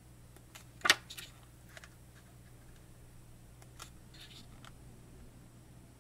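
Pages of a photo book being handled and turned by hand: a sharp paper snap about a second in, then soft page rustles and small ticks.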